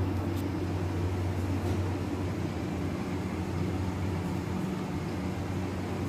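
A steady low mechanical hum that holds level throughout, with a couple of faint ticks about a second in.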